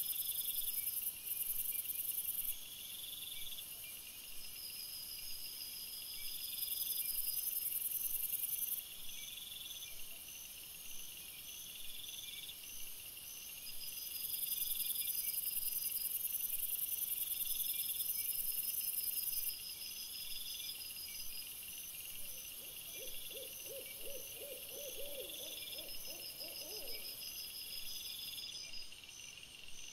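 Night insects chirping in regular repeating trains, heard in trail-camera audio sped up three times, over a high hiss that switches on and off abruptly. A short, low, rapid trill sounds about two-thirds of the way through.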